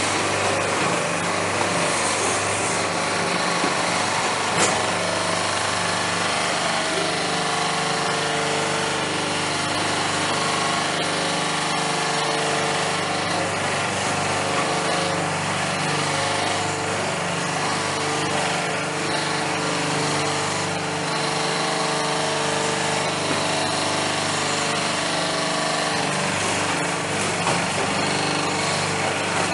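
Electric-motor-driven coconut husk peeling machine running, its rollers stripping the husk off a coconut: a steady mechanical hum and rattle with a few sharp knocks.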